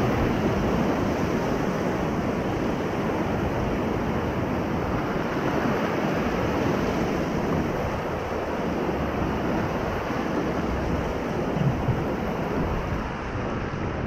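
Whitewater rapids of the Ocoee River rushing steadily around a paddle raft, heard from on board, easing slightly just past halfway.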